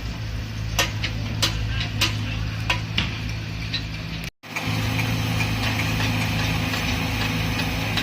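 The diesel engine of a heavy construction machine, most likely an excavator, running steadily, with several sharp metallic knocks in the first three seconds. The sound cuts out for a moment just past the middle, then the engine picks up again.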